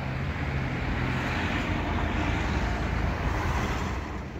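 A car driving past over the level crossing: a low engine hum and tyre noise that builds, then drops away near the end.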